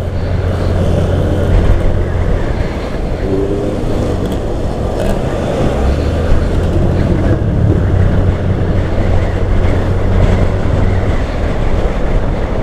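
Yamaha Grand Filano scooter being ridden through traffic: a steady low rumble of wind on the microphone over the engine and road noise.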